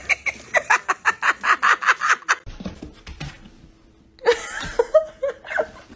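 People laughing. A quick, even run of laughs stops abruptly a little over two seconds in. After a short lull, more laughter starts about four seconds in.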